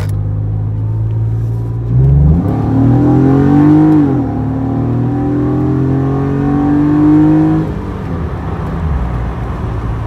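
1992 Acura NSX's V6 breathing through a Pride V2 aftermarket exhaust, pulling hard under acceleration. About two seconds in the engine note jumps and climbs, dips briefly around four seconds, and climbs again. It drops back to a low steady drone near eight seconds as the throttle closes.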